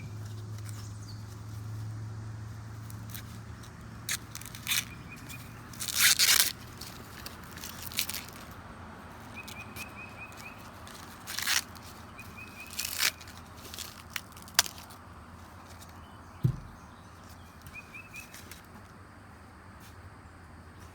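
Green husks being torn and stripped from an ear of sweet corn: several short, loud ripping tears spread across the time, the biggest about six seconds in. A small bird chirps faintly a few times.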